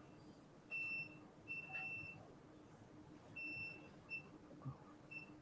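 Electronic beeping from operating-room medical equipment during the thyroid ablation. There are about five faint beeps at one high pitch, some short and some held for up to about half a second, at irregular intervals.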